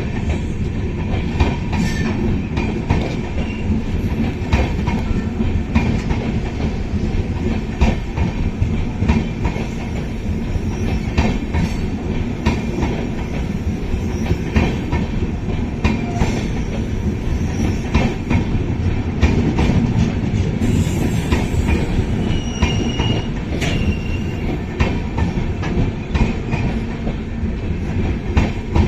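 Wheels of a passenger train's LHB coaches rolling over the rails: a steady rumble broken by many clicks over the rail joints. Brief high-pitched wheel squeals come in about three quarters of the way through.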